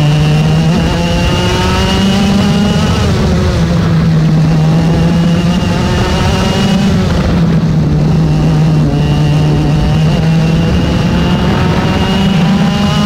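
X30 Mini kart's 60cc two-stroke engine at full throttle, its pitch climbing steadily as the kart accelerates. The revs dip briefly twice as it lifts for corners, then climb again.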